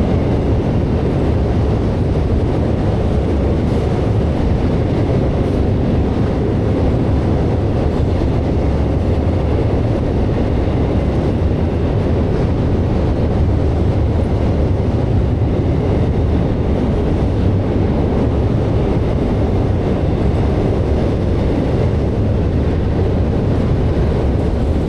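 Intermodal freight train rolling across a railway drawbridge: a steady, loud rumble of wheels on rails.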